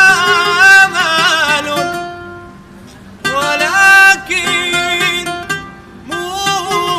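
Ornamented Arabic tarab singing by a male voice over oud accompaniment, in three long melismatic phrases with short pauses between them.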